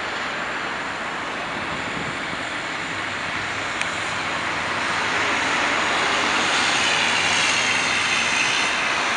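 Highway traffic going by: a steady wash of tyre and engine noise from cars and a tractor-trailer, growing louder about halfway through, with a faint high whine toward the end.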